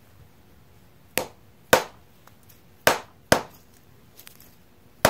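Dead blow hammer striking a Ford 9-inch differential carrier case, five sharp knocks in pairs about half a second apart, trying to separate the case halves, which stay stuck.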